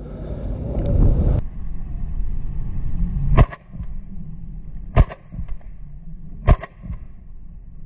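Airsoft gun firing three sharp single shots about a second and a half apart, after a loud rumbling noise that cuts off abruptly about a second and a half in.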